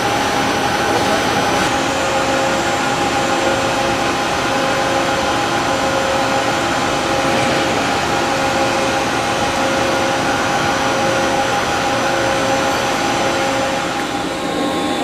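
Large vertical turning lathe cutting a big metal ring: a steady machine whir with several held tones, the cutting tool throwing hot chips.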